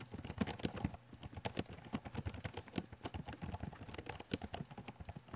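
Typing on a computer keyboard: a fast, uneven run of keystroke clicks.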